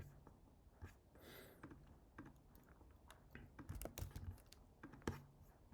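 Faint typing on a computer keyboard: scattered keystrokes, coming more quickly in the second half.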